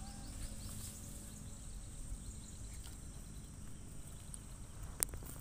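Outdoor background noise with a low, steady rumble and a faint, steady, high insect buzz. A single sharp click comes about five seconds in.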